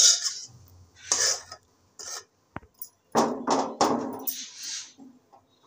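Metal spatula scraping and knocking against a steel cooking pan and serving bowl in a series of separate strokes, as fried beans and potato are served out.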